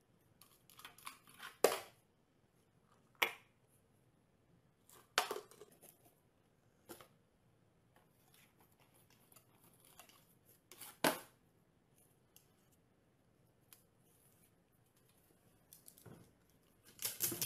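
Sparse, sharp knocks and taps a few seconds apart, with faint scuffling between, as a small dog pushes a tin can and a cardboard box about on a glass tabletop.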